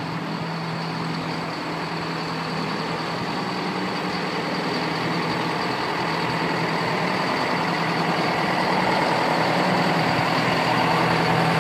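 Fire department ladder truck's diesel engine running at low speed as it rolls slowly past close by, a steady low hum that grows gradually louder.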